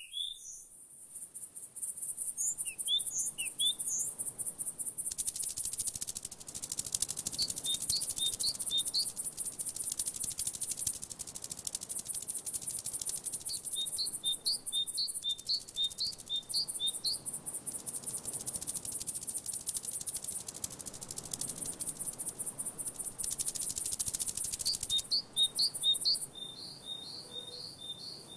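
Outdoor summer ambience: a steady, very high insect buzz that starts about five seconds in, drops out briefly twice and stops near the end. Over it, a bird chirps every few seconds in quick runs of short high notes.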